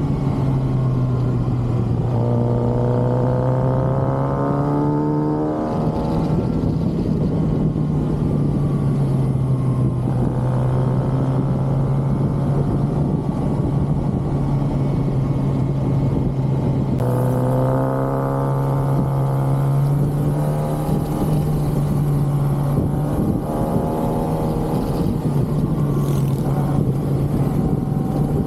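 Stock 2023 Kawasaki ZX6R's 636 cc inline-four engine running under way, over wind rush. Twice its pitch climbs as it pulls under throttle, then it drops back and settles.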